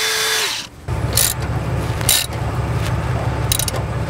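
Cordless drill running as it bores through thick sheet steel with an oiled bit, stopping about half a second in. Then a low steady hum with a few light metallic clicks as bolts and the bracket are handled.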